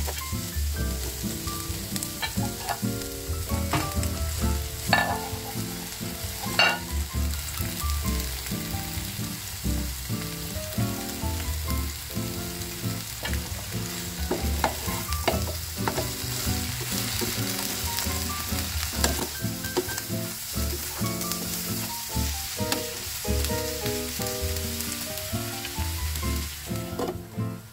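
Sliced eggplant, onion and tomato sizzling in a nonstick frying pan as a spatula stirs and turns them, with occasional sharp clicks of the spatula against the pan.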